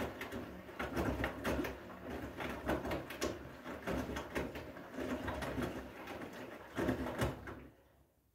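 Front-loading washing machine drum turning, with wet laundry tumbling and sloshing in an irregular run of soft thuds and swishes. The sound fades out shortly before the end as the drum comes to a stop.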